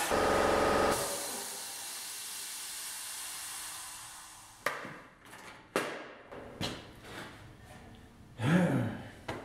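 A handheld air grinder's high whine cuts off about a second in, leaving a hiss that fades away over the next few seconds. Then the steel floor pan section is handled, giving several sharp metal knocks and, near the end, a louder clatter with a low, wavering ring.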